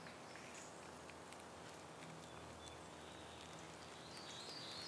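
Faint forest ambience: a low steady hush with scattered short, high bird chirps, and a brief run of stepped high notes near the end.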